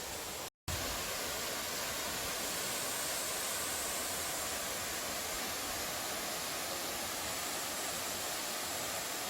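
Steady rush of a mountain valley stream flowing over rocks. The sound cuts out completely for a moment about half a second in, then resumes unchanged.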